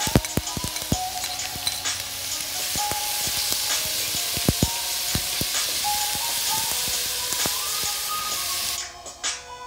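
Onion, carrot and garlic sizzling in hot oil in a metal pot while being stirred, with a fork clicking and scraping against the pot, most often in the first half. The sizzle cuts off suddenly near the end.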